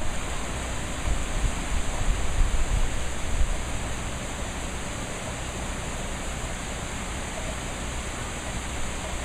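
Steady hiss of heavy hurricane rain, with louder, uneven low rumbling in the first few seconds that settles into the even hiss.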